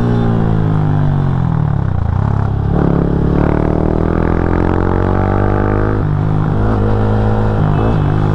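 Yamaha MT-15's single-cylinder engine on the move: the revs drop over the first two seconds, then climb from about three seconds in, and level off near the end.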